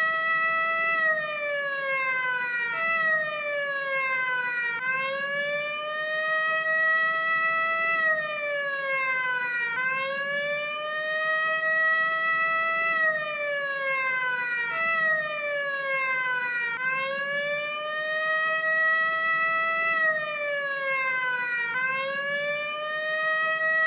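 Vintage police siren wailing: a single tone that climbs in pitch over a few seconds and then slides back down, again and again in a slow, continuous cycle.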